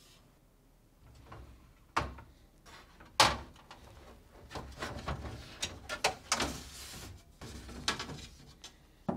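Glass refrigerator shelves being lifted out of their plastic frame: sharp knocks and clinks of glass against plastic, with a spell of scraping and sliding in the middle. The loudest knock comes about three seconds in.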